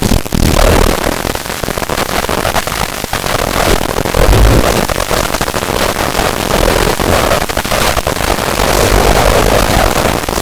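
A very loud, harsh wall of distorted noise with a low rumble underneath: a clip's soundtrack overdriven by editing-software audio effects until it is little more than noise.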